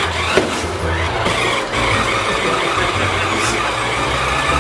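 Toy-grade RC car's small electric motor and gears whining, the pitch gliding up and down with the throttle as it drives on a polished concrete floor, with a single knock about half a second in.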